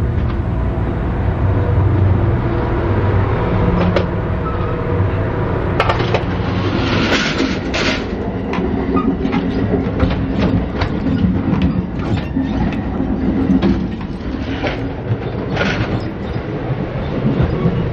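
Amtrak passenger train rolling along the track, heard from inside a passenger car: a steady low rumble, with frequent sharp clicks and rattles of the wheels and car from about six seconds in.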